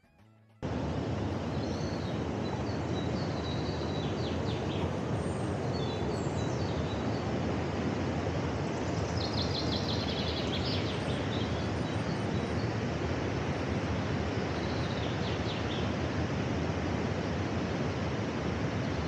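Steady rush of river water pouring over a low mill dam and through rocky rapids. A bird chirps in quick runs of notes above it a few times.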